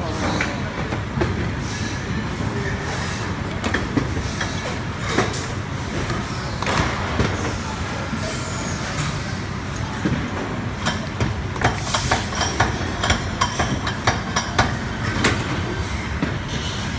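Steady low machine rumble of a workshop floor, with scattered clicks and knocks from hands and a tool working on the wiring of an electric hub-motor stator; the knocks come thicker in the second half.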